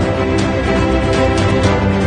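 Background music with held sustained notes and light, high percussive ticks recurring about every half second.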